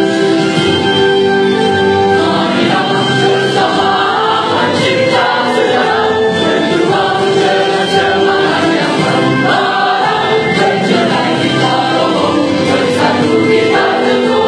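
A mixed choir of men and women singing a slow song together, holding long notes.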